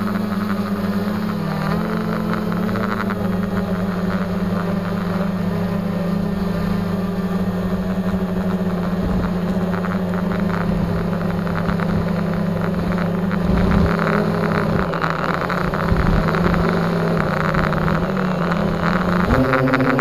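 X450 multirotor drone's electric motors and propellers heard from its onboard camera as it lifts off and climbs: a steady buzzing hum that shifts in pitch a few times and rises near the end.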